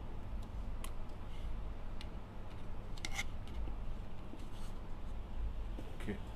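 A few light, sharp clicks and small scrapes over a low steady hum, the strongest click about three seconds in.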